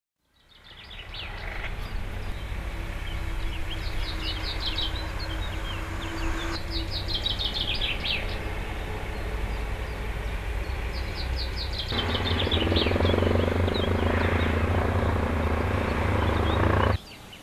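Outdoor ambience of birds chirping in quick runs of high notes, several times, over a steady low rumble. The background changes abruptly twice and drops away near the end.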